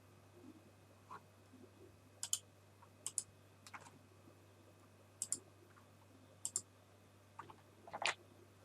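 Mouse buttons clicking: short sharp clicks, most in quick pairs, a second or so apart, the last one the loudest near the end.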